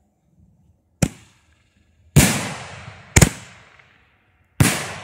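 Fireworks going off at night: five sharp, loud bangs about a second apart, each trailing off in a long echo. The first bang dies quickly and the later ones ring out longer.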